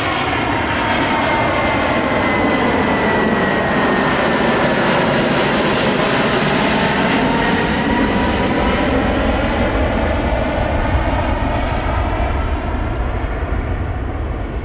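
Airbus Beluga XL's twin Rolls-Royce Trent 700 turbofans flying low overhead: a loud jet roar with a whine that slides down in pitch as the aircraft goes by, easing off a little near the end as it draws away.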